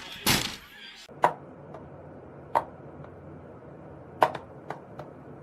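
A short noisy burst, then a low steady hum with a few sharp, irregularly spaced taps or knocks, two of them close together about four seconds in.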